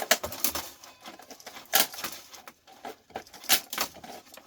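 Irregular clicks and clatters of plastic and circuit-board parts being pulled apart and handled, with a few sharper knocks about two and three and a half seconds in.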